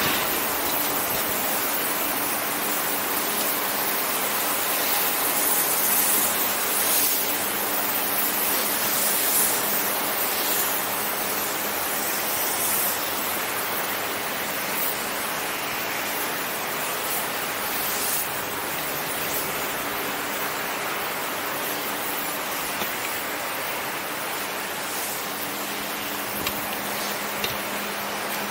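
Steady rushing hiss of wind over an open chairlift on the ride up, with a faint steady low hum underneath and a couple of light clicks near the end.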